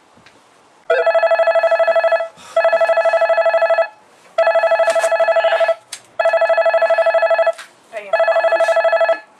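Mobile phone ringing: a trilling telephone-style ring that starts about a second in and repeats five times, each ring about a second and a half long with short pauses between.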